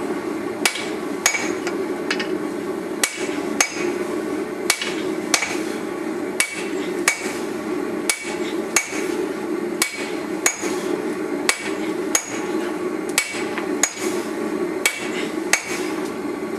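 Hammer blows on a hot forge-welded steel and wrought-iron billet on the anvil, striking steadily about twice a second, with a steady low hum underneath. The weld has set and the billet is being hammered out.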